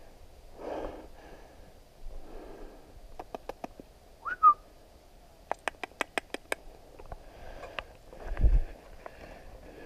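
A person whistling one short note that rises and then holds, about four seconds in, calling to a mouflon in its enclosure. Quick runs of sharp clicks come just before and after the whistle, and there is a dull bump near the end.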